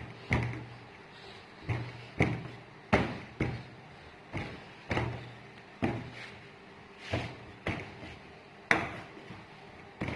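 Rolling pin working puff-pastry dough on a board: a knock at each stroke, about once a second, each followed by a short low rumble as the pin rolls.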